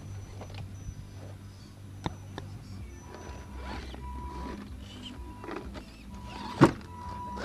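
Electric drive motors of Axial SCX-10 scale RC rock crawlers running as the trucks crawl over rocks, with a steady high tone from about three seconds in. Scattered clicks and knocks of tyres and chassis on stone, and one sharp, loud knock about six and a half seconds in.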